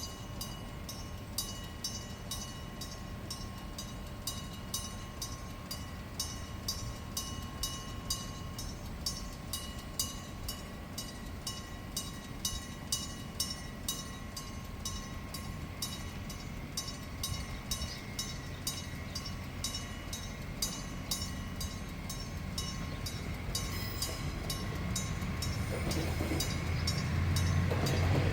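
Electric-bell level-crossing warning ringing in a quick, even rhythm of strokes. From about three-quarters of the way in, a Kominato Railway KiHa200 diesel railcar approaches, and its engine and wheel rumble grow louder toward the end.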